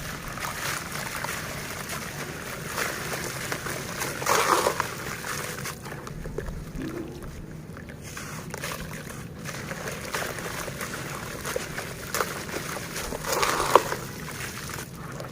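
Lumps of dry red dirt crumbling and breaking apart in water, with sloshing and small crackles. Two louder bursts come about four and a half seconds and thirteen and a half seconds in.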